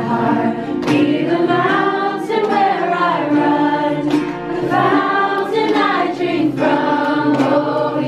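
A group of men and women singing a worship song together, accompanied by a strummed acoustic guitar.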